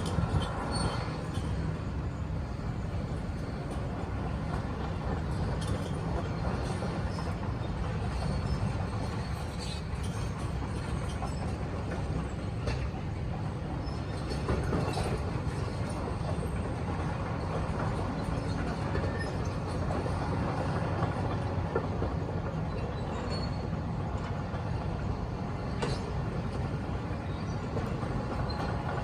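Hydraulic excavator's diesel engine running steadily under load, with scattered knocks and clatter of demolition debris being worked.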